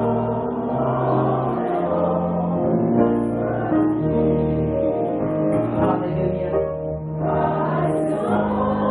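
Church choir singing a slow gospel hymn, with long-held notes in chords that change every second or so.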